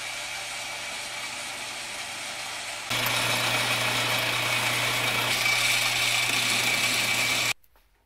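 Metal lathe running, turning a small metal fitting: a steady motor hum with a high whine and hiss over it. It gets louder about three seconds in and cuts off suddenly near the end.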